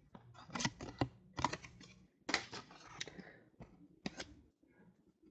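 Football trading cards handled and flipped through by hand: irregular short papery clicks and slides of card stock against card stock.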